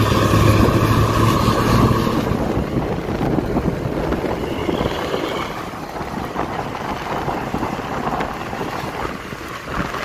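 Vehicle engine and wind rush while driving on the road. A steady engine drone stands out for about the first two seconds, then gives way to a broader road and wind noise.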